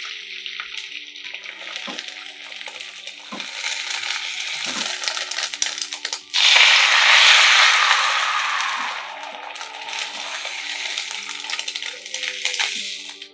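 Beaten egg sizzling in a hot oiled non-stick frying pan. About six seconds in, a second pour of egg hits the pan and the sizzle jumps much louder, then slowly dies back down; a few light knocks of utensils on the pan.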